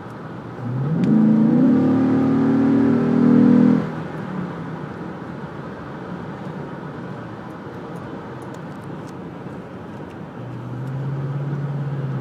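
Toyota Tundra pickup with a Corsa sport exhaust accelerating hard from highway cruise, heard from inside the closed cab. The exhaust note rises in pitch and gets loud for about three seconds, then falls back to a steady road hum. Near the end a low steady hum comes in.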